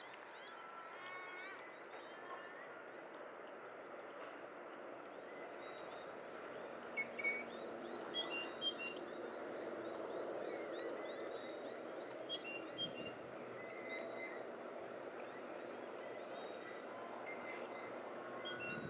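Several wild birds chirping and whistling in short scattered calls, livelier about a third of the way in, over a steady low background rumble that swells around the middle.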